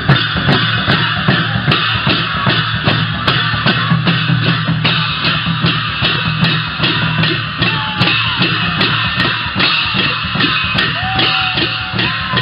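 Sakela dance music played on dhol barrel drums and large jhyamta hand cymbals, beating a fast, steady rhythm with the cymbals clashing on the beat.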